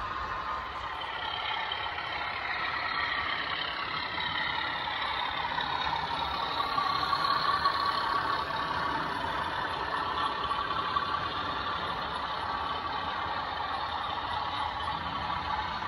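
OO gauge model locomotive's DCC sound decoder playing a locomotive engine sound through its small onboard speaker as the model freight train runs along the track. The engine note rises and falls, and it is loudest about halfway through, as the locomotive passes closest.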